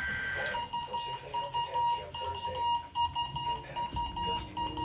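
A two-tone data burst from the weather radio broadcast, a SAME test header, cuts off about half a second in. A weather alert radio receiver then starts beeping in a rapid on-off pattern, its alarm set off by the Required Weekly Test.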